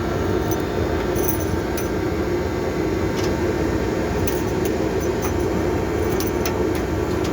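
Loud, steady drone of running machinery, with a few light metallic clicks and clinks scattered through it.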